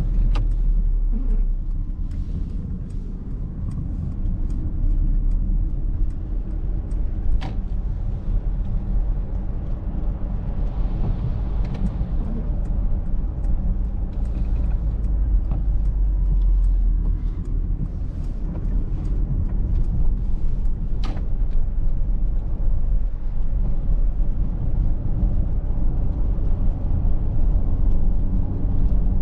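Driving noise of a 2023 Mercedes-Benz GLC 300de 4Matic on the move: a steady low rumble from tyres and drivetrain, with scattered light ticks of rain.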